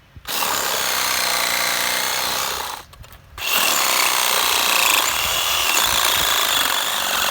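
Battery-powered chainsaw cutting through a fallen tree branch, running in two stretches with a brief stop about three seconds in.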